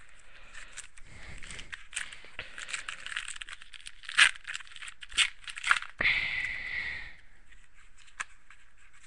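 Plastic wrapper of a hockey trading card pack crinkling as it is handled, with sharp snaps around four to six seconds in, then a short rip as the pack is torn open.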